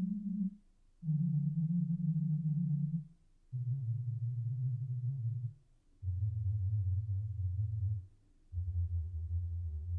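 Low test tones from the Spatial Audio Calibration Toolkit's crossover-point test, played through the home-theater speakers with the subwoofer switched off. They come in bursts of about two seconds with short gaps, each burst a step lower in pitch than the last, running through 125 Hz and 80 Hz, to check how low the speakers can really go.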